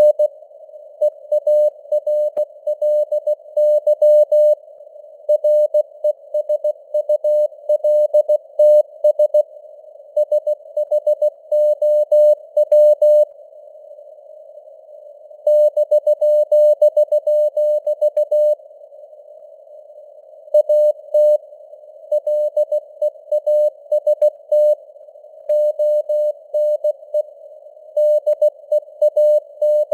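Morse code (CW) sent at 16 words per minute as a keyed mid-pitched beep tone, in dots and dashes, over simulated radio band noise, a narrow hiss around the tone. The signal strength rises and falls (QSB), and there are two longer pauses in the keying near the middle.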